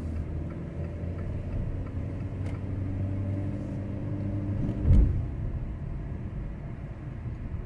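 Car engine running steadily while driving, heard from inside the cabin, with a sharp thump about five seconds in; after the thump the engine hum fades into road noise.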